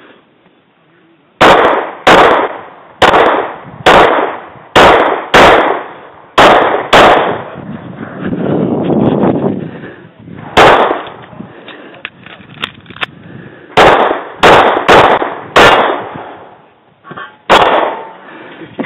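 9mm Ruger SR9c compact pistol fired at close range, about fourteen shots, mostly in quick pairs about half a second apart, with pauses of a few seconds between groups and a last single shot near the end.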